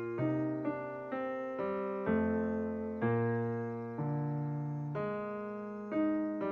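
Calm, slow piano music: soft notes and chords struck about once a second, each ringing and dying away before the next.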